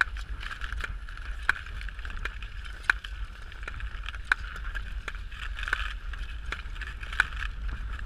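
Speed-skate blades on ice: a steady scraping hiss with a sharp click about every second and a half as the strokes land, over a low wind rumble on the microphone.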